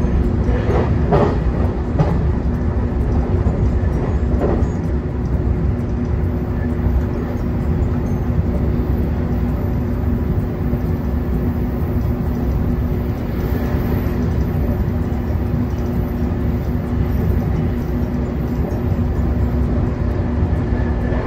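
JR Kyushu 813 series electric train running, heard from inside the passenger car: a steady rumble of wheels on the rails with a constant low hum. There are a few knocks from the track in the first five seconds.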